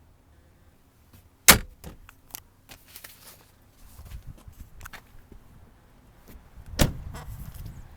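Latches and lids in a pickup's cab being shut: a sharp snap about a second and a half in, then light clicks and rattles. A second slam comes near the end.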